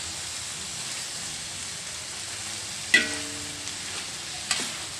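Shredded cabbage and carrots sizzling steadily in a metal wok as they are stir-fried with a metal spoon. The spoon clanks against the pan about three seconds in, ringing briefly, and again more lightly near the end.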